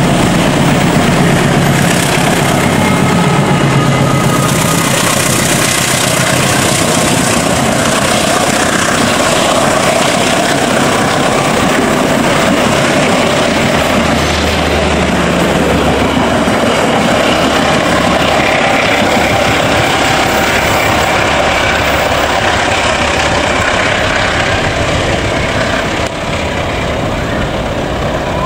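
Diesel-electric locomotive passing close with its engine running, then a long rake of passenger coaches rumbling past on the rails. The sound drops near the end as the train moves away.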